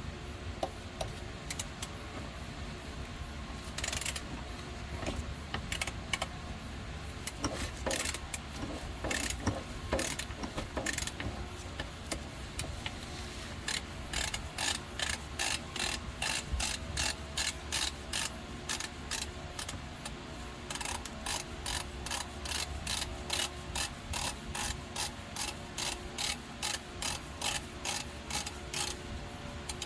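Hand ratchet wrench clicking as it works the oil filter loose on a Porsche 997's engine: a few scattered clicks at first, then steady strokes of about two clicks a second with a short pause partway through.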